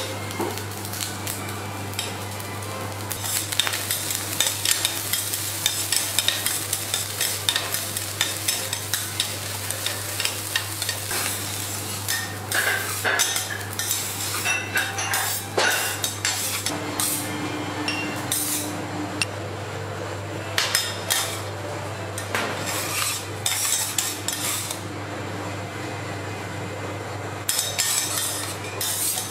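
Metal spatulas scraping and tapping on a teppanyaki steel griddle as fried rice is chopped and turned, with many sharp clinks from a few seconds in, over a steady sizzle and a low hum.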